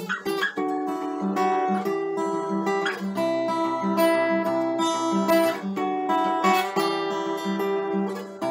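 Acoustic guitar being played: ringing chords and picked notes that change about every second, with a few strummed accents.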